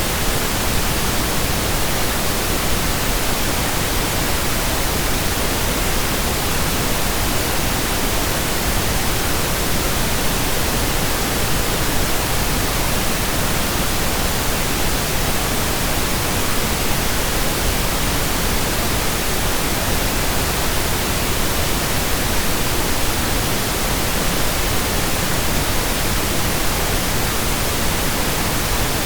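Pink noise: a steady, even hiss spread across all pitches, unchanging throughout.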